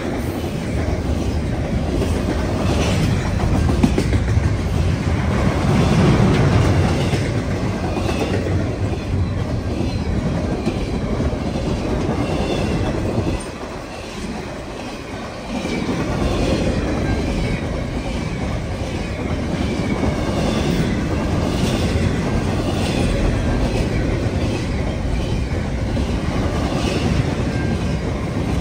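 A long CN freight train's cars rolling past, the wheels clicking in a steady rhythm over the rail joints. The sound drops for about two seconds around 13 seconds in, then picks up again.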